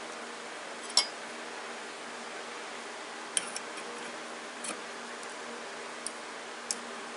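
A handful of sharp, light metallic clicks at irregular intervals, the strongest about a second in, from a tap and T-handle being handled in hand tapping of a steel pin, over a steady low hum.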